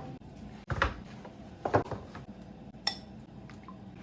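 Kitchen dishes and utensils handled during cooking: a few separate knocks, then a ringing clink about three seconds in.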